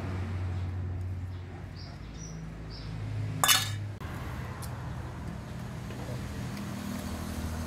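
A single sharp metallic clink with a brief ring about three and a half seconds in, a metal spoon striking a stainless-steel bowl, over a steady low background hum.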